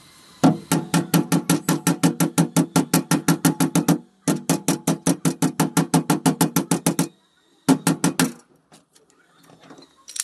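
A hammer taps rapidly on a steel multi-finger dent-pulling tool hooked onto the crashed car door panel during panel repair, about six ringing metallic blows a second. The blows come in two long runs with a brief break about four seconds in, then a short burst near eight seconds.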